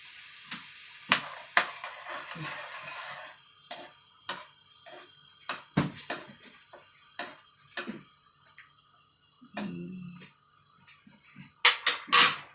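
Kitchen utensils knocking and clinking against a cooking pot and dishes in irregular single strikes, with a louder cluster of clinks near the end.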